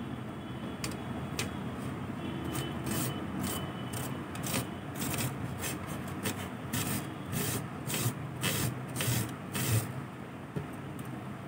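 Carrot being grated by hand on a stainless-steel grater: a run of quick rasping strokes, about two a second, building up a couple of seconds in and stopping shortly before the end.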